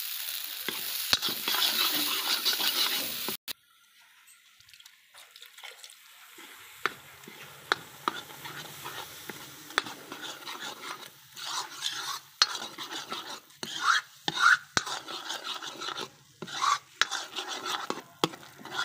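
A steel spoon stirring and scraping thick ground paste in an iron wok, with many sharp clicks of the spoon knocking the pan, the scraping getting louder in the second half. For the first three seconds a loud sizzling hiss from the hot pan runs under it and cuts off suddenly.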